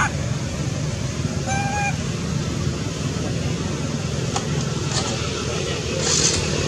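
A monkey gives one short pitched call about one and a half seconds in, over a steady background rumble, with a few faint clicks later on.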